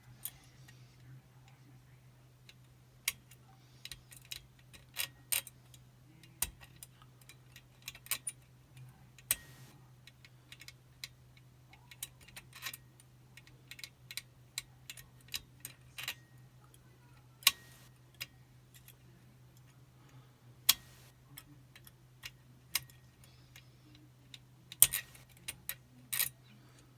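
Irregular small metallic clicks and ticks from a picking wire and tension tool working the levers of a Chubb Detector five-lever lock, coming singly and in short clusters with pauses between.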